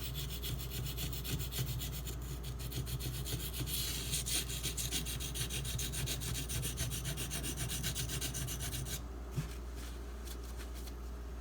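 Knife blade of SG2 (Super Gold) steel scraping back and forth on a Shapton Pro 320-grit waterstone in rapid, even strokes: a rasping grind. The strokes stop about nine seconds in, followed by one short knock and a few faint scrapes.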